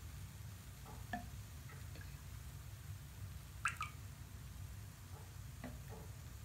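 Sparse water drops plinking into a tub of bath water, about half a dozen, the loudest a quick double drip just past halfway, over a steady low hum.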